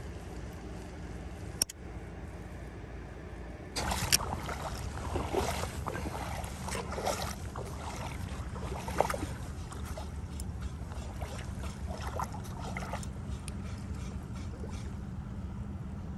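Small waves lapping and splashing at a rocky shoreline, starting about four seconds in over a steady low rumble, after a quieter stretch with one sharp click.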